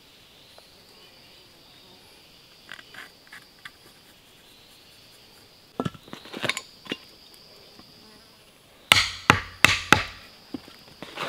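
A steady high-pitched insect call in the forest, with a few light clicks around six seconds in, then four sharp wooden knocks in quick succession about nine to ten seconds in as wooden-handled carving chisels are taken from their tool roll and handled.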